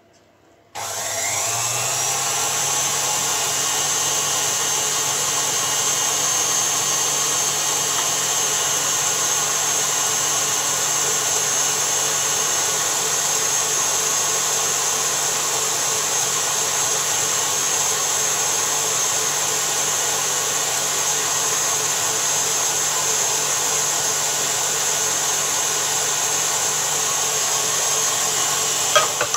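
KitchenAid stand mixer starting up about a second in, its motor whine rising briefly, then running steadily at speed. It is whisking eggs and sugar while oil is streamed in to form an emulsion.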